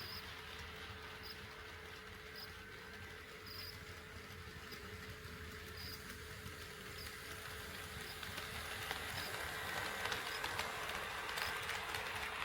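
HO scale model train running on KATO Unitrack, with a steady rolling rattle and light clicks that grow louder about two-thirds of the way in as the train approaches.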